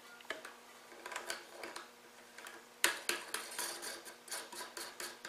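Nylon lock nut being threaded by hand onto the shank of a toilet fill valve under the tank: a run of small plastic clicks and ticks, the sharpest about three seconds in, with quicker clicks after it.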